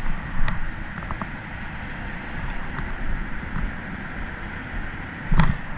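Steady low outdoor rumble with a few light clicks from a spinning rod and reel being handled, and one louder knock about five seconds in.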